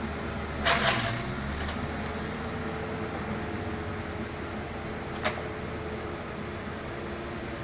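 An excavator's engine running steadily, with a burst of metal clanks about a second in and one sharp knock a little after five seconds.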